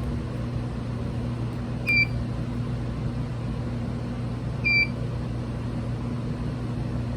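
Two short, high electronic beeps about three seconds apart over a steady low electrical hum.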